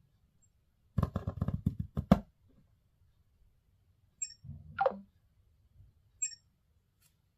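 Handling noise from a phone: a quick flurry of clicks and knocks about a second in, a short rustle about four and a half seconds in, and two brief high electronic beeps, one just before and one about two seconds after that rustle.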